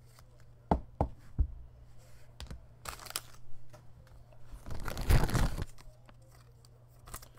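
Trading cards and their plastic packaging being handled: a few sharp clicks and taps, then a louder crinkling, tearing rustle about five seconds in.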